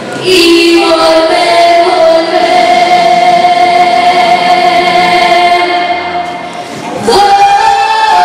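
A group of young voices singing together, led by a girl's voice on a microphone. They hold one long note for several seconds, then start a new phrase about seven seconds in.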